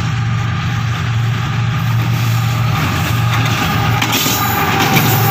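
Pakistan Railways GEU-40 diesel-electric locomotive approaching and passing close by: a steady low diesel engine drone, with rushing wheel-on-rail noise building and clattering as it goes past about four seconds in.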